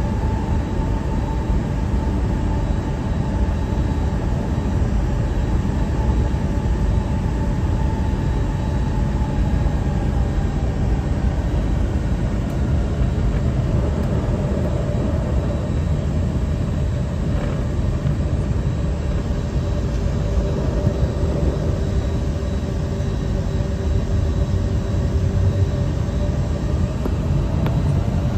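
Jet airliner heard from inside the cabin while taxiing onto the runway: the engines run steadily at low power over a deep rumble, with faint whines that shift slowly in pitch.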